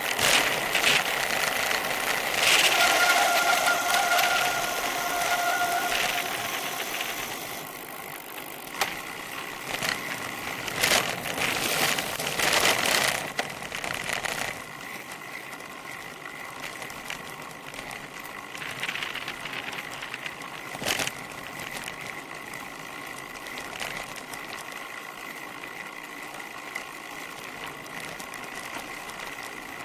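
Bicycle rolling downhill, with tyre and wind noise, rattling and ticking from the bike itself, heard through a camera mounted on the frame. There are several sharp bumps partway through and a brief steady whine early on. The noise is loudest at first and settles lower after about halfway.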